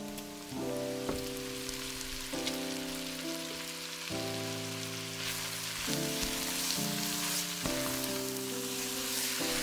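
Cubes of raw beef chuck sizzling as they fry in a pot with onions and peppers, the sizzle growing stronger about halfway through as they are stirred with a wooden spatula. Background music of sustained chords that change every second or so plays throughout.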